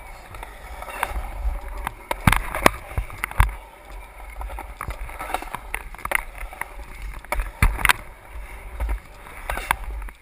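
Skateboard rolling through a concrete bowl: wheels running on the concrete with irregular sharp clacks as they cross joints and cracks, over a steady low rumble of wind on the microphone.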